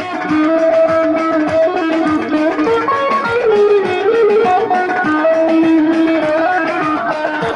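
Folk dance music: an amplified plucked string instrument plays a quick, ornamented melody over a steady beat.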